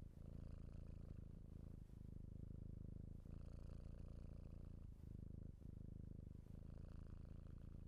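Domestic cat purring, faint and steady, with a short dip at each breath every second or two.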